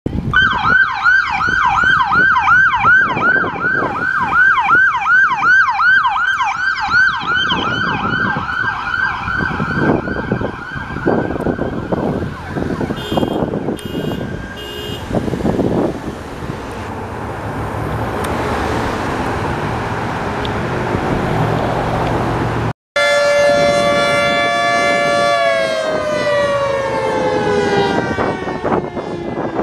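Emergency vehicle sirens. A yelp siren rises and falls about three times a second, then fades away under road and engine noise. After a cut, another siren holds a steady note and then slides steadily down in pitch.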